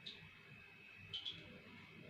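A few faint, short clicks, one at the start and two close together about a second in, over quiet room tone with a faint steady high hum.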